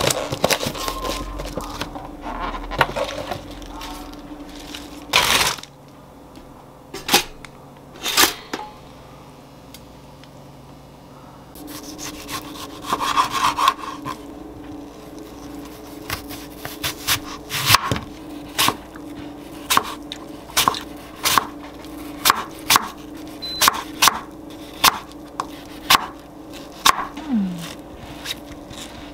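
A chef's knife slicing a tomato and then an apple on a wooden cutting board, each cut ending in a sharp knock on the wood, roughly one a second through the second half. Before that, lettuce leaves rustle in a plastic tub, with a few clicks.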